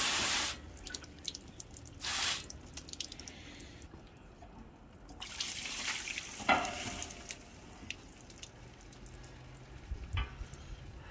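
Garden hose spray nozzle hissing water into a steel smoker's cooking chamber, cutting off about half a second in, with another short spray around two seconds. Then water dripping and running out as the smoker is tipped to drain, with a sharp metal knock about six and a half seconds in.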